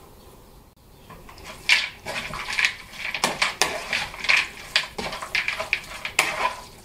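Pesto-dressed spaghetti salad being stirred and tossed with a wooden spoon in a plastic bowl, in irregular strokes that begin about a second and a half in.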